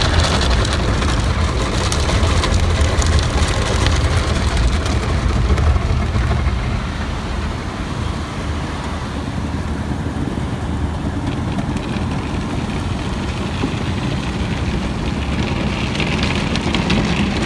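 Automatic car wash machinery running around the truck, a steady loud rush with a deep rumble heard from inside the cab.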